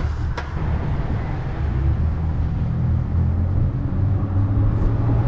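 Car engine idling with a steady low rumble, a little louder after about two seconds, and a single sharp click just after the start.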